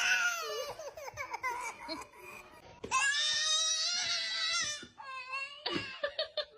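Baby crying: short high cries, then one long wail about three seconds in, and a few brief cries near the end.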